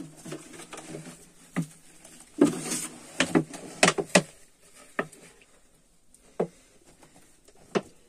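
A plastic bag of powder being shaken and tapped over a concrete slab: a short rustle, then a string of sharp taps and knocks, thickest about three to four seconds in.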